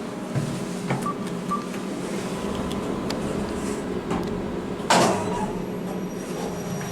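Kone MonoSpace lift car in motion with a steady hum, two short beeps about a second in, and a sharp clunk about five seconds in.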